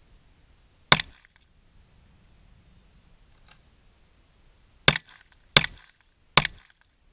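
Four pistol shots from a 9mm Glock 19: one shot about a second in, then after a pause of about four seconds broken only by a faint click, three more in quick succession about 0.7 s apart.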